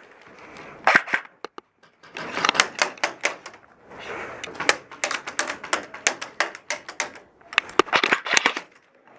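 Airsoft guns firing in short rapid bursts, a clattering run of sharp clicks in four or five groups.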